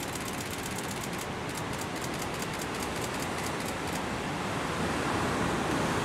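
Steady rushing noise of heavy surf and wind, growing a little louder near the end. A fast, high ticking runs over it and stops about four seconds in.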